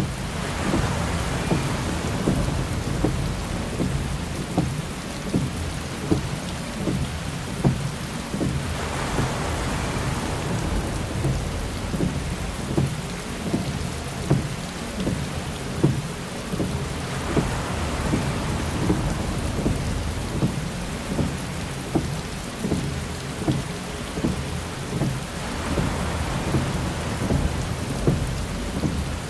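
Heavy rain hitting a car windshield, with many sharp drop impacts over a steady hiss and low rumble. A windshield wiper swishes across the glass about every eight to nine seconds, four times in all.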